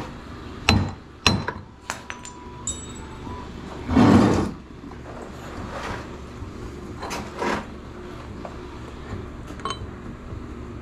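Metal parts and tools knocking and clanking on a four-cylinder generator engine being torn down: several sharp knocks in the first three seconds, one with a brief metallic ring, then a louder half-second rushing sound about four seconds in and a few lighter knocks after it.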